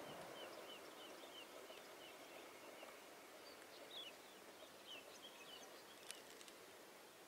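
Faint small-bird chirping: a quick run of short chirps, about four a second, then more scattered calls, over quiet outdoor background. One sharp click about six seconds in.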